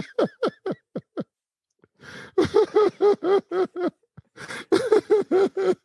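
Men laughing hard: rapid bursts of 'ha-ha' laughter, about five pulses a second, in three bouts with short breaks between them.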